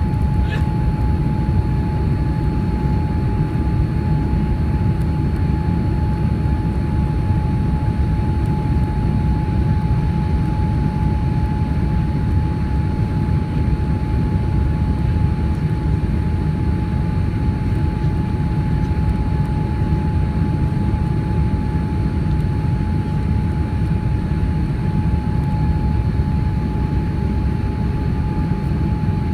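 Boeing 787-9 Dreamliner in flight on approach, heard from inside the cabin: a steady low rumble of engines and airflow with a constant high-pitched tone running over it.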